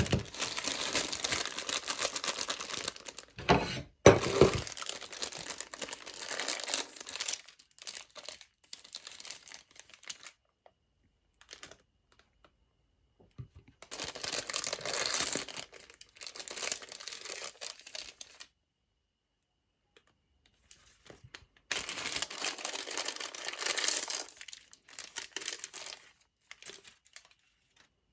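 Plastic wrappers crinkling and being torn open in several spells of rustling, with two thumps about three and a half and four seconds in.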